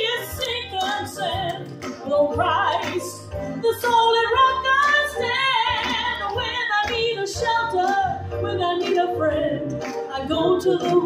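A woman singing a song into a handheld microphone, her voice carried over a sound system, with instrumental accompaniment underneath.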